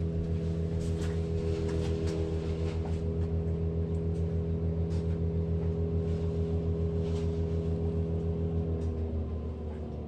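Oil burner on a Buderus oil-fired boiler running: a steady motor-and-blower hum with a rapid low pulsing. Near the end its tone shifts and it drops slightly in level.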